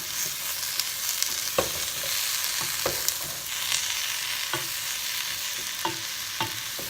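Zucchini, celery, carrots and potatoes sizzling in hot olive oil in a stock pot as they are stirred, with a steady hiss and about five sharp knocks.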